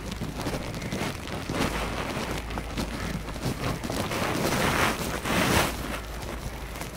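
Wind buffeting the microphone with a low rumble, and footsteps crunching in fresh snow. The noise swells about four and a half seconds in and eases again a second later.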